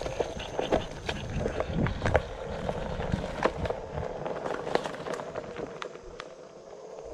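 Onewheel XR electric board rolling along a dirt trail: a steady hub-motor hum under frequent crunches, cracks and snaps from the tire going over dirt and twigs, with low wind rumble on the microphone.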